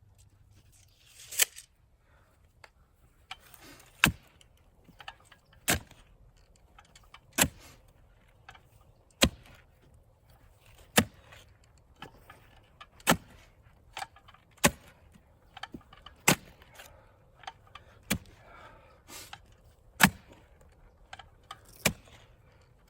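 Steady, evenly paced hammer strikes, about a dozen sharp blows, one every couple of seconds.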